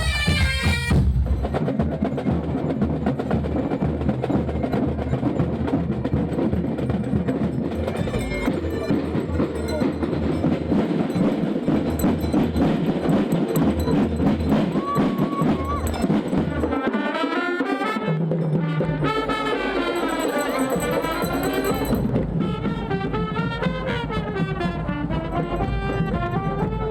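Scout marching band playing: snare and bass drums keep up a steady marching beat, and a bagpipe-like wind melody comes in over the drums in the second half.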